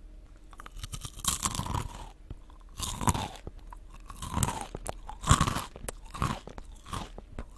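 Close-miked crunching and chewing of a small koala-shaped biscuit, with a loud crunch about once a second.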